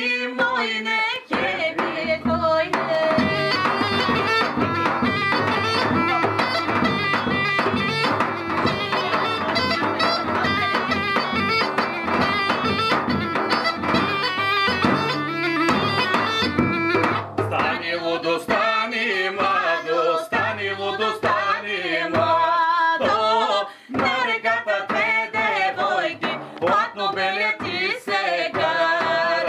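Bulgarian kaba gaida (deep goatskin bagpipe) playing an ornamented folk melody over a steady low drone, with a tapan drum beating along. About halfway through the drone drops out and voices take over, singing with the drum.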